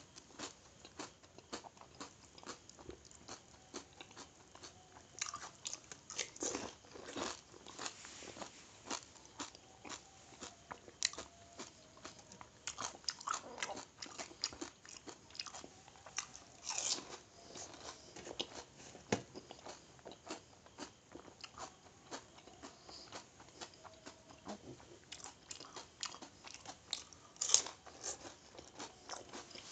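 Crisp, hollow pani puri shells cracking and being crunched and chewed, a steady run of sharp crackly clicks with one loud crunch near the end.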